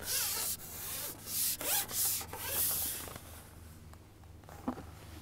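Carbon fishing pole being handled and moved out over the water, rubbing and swishing against hands and clothing several times, then quieter with a small tap near the end.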